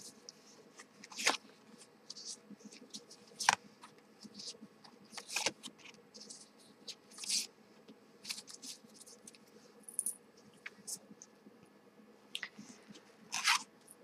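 A deck of tarot cards being handled: cards sliding against one another as the deck is fanned, and single cards pulled out and laid down on a cloth. It comes as a string of short, irregular rustles and soft snaps.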